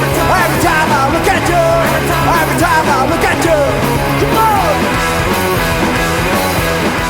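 Punk-styled rock song by a full band with a sung lead vocal; the vocal stops about four and a half seconds in while the band plays on.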